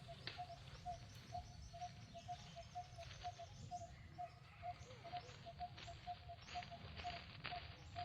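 Faint outdoor ambience: a bird repeats one short, evenly spaced note about twice a second, with higher chirps joining about three seconds in, over a low rumble.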